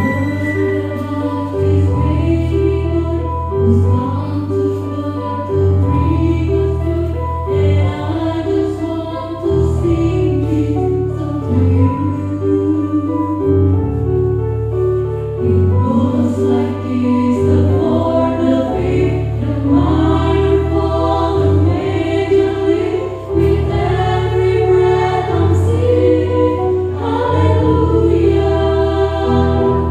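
Mixed choir of men's and women's voices singing into microphones, over an instrumental accompaniment with sustained bass notes.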